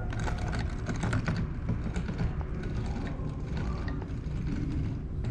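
Hand-cranked display model of steam locomotive valve gear being turned, its linkages and wheel clicking and rattling, busiest in the first second or so.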